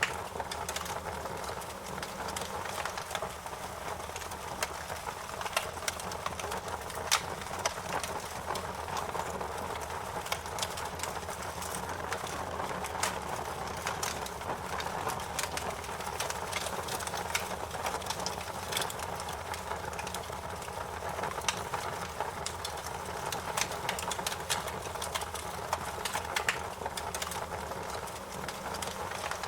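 Wood fire burning in a fireplace: a steady hiss and low rumble of flames, with frequent irregular crackles and sharp pops from the burning wood.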